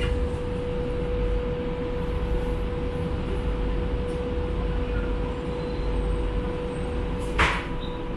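Inside a metro train carriage: a steady low rumble under a constant hum. A brief sharp noise comes about seven seconds in.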